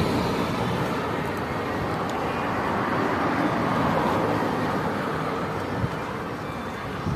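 Steady rushing background noise that swells and fades slowly, with no distinct events.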